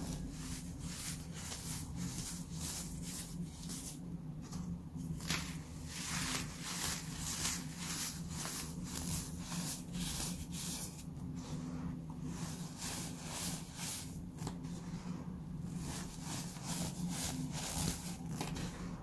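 Handfuls of baking soda mixed with sprinkles squeezed and crumbled between the fingers: a fast run of soft crunches, with powder sifting back onto the pile.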